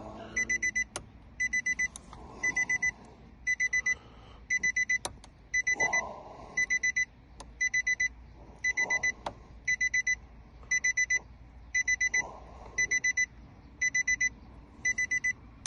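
Electronic warning beeper sounding in groups of about four quick high beeps, the groups repeating about once a second without a break. A few light metallic clicks come through between them.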